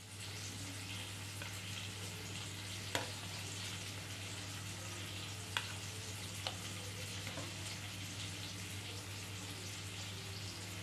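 Steady sizzle of frying oil over a low hum, with a few light clicks from a metal spatula setting fried fish steaks on a plate.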